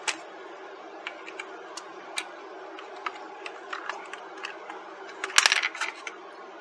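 Light scattered clicks and taps of a small screwdriver and fingers handling the plastic back case of a Retekess V115 shortwave radio, with a louder, quick rattling clatter about five and a half seconds in, over a faint steady hum.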